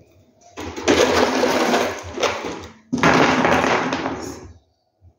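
Loose crushed-stone gravel rattling and grinding as a hand rummages through it to pick out stones, in two bursts of about two seconds each.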